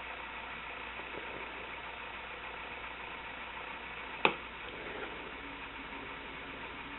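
Steady faint hiss of a quiet room, with one sharp click about four seconds in.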